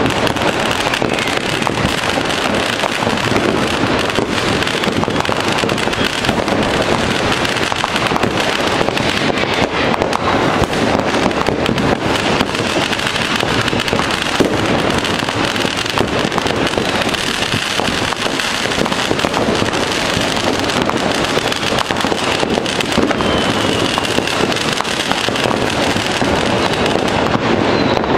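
Many fireworks and firecrackers going off at once: a dense, unbroken crackle of bangs, with a brief whistle about twenty-three seconds in.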